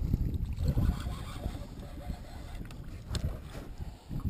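Wind buffeting the microphone: an uneven low rumble, strongest in the first second and easing off toward the end.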